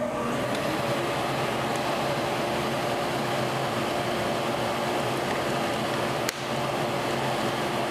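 Drill press running, its twist bit drilling a quarter-inch hole through an aluminum miter-track insert: a steady motor hum under the hiss of the cut, with a short break and a click about six seconds in.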